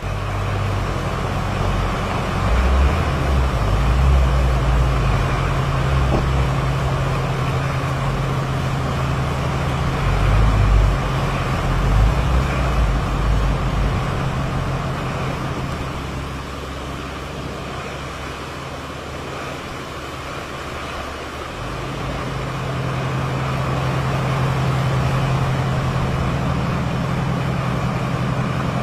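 Strong hurricane wind buffeting the microphone: a loud, uneven low rumble in gusts over a rushing wind noise, easing for a few seconds past the middle and then picking up again.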